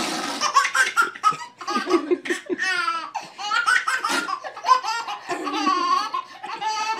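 Baby laughing hard in a long run of high-pitched belly laughs, one burst after another with short gasps between.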